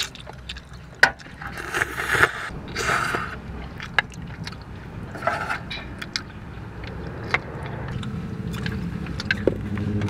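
Chopsticks clicking and scraping against a bowl and a metal cooking pot while food is eaten and stirred, in many short irregular taps. A low steady hum builds near the end.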